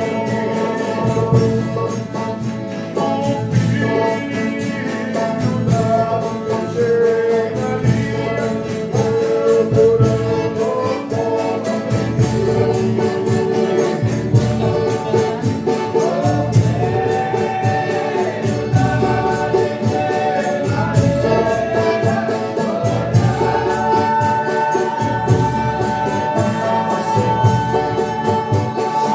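Folia de Reis company singing an agradecimento, a sung thanksgiving, with several voices together over a tambourine and instruments keeping a steady beat.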